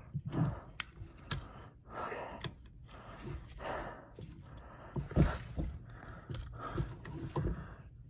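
Scattered plastic clicks and knocks with short rustling bursts and a few dull thumps: a Whirlpool dishwasher drain pump being twisted loose and pulled out of its housing by hand.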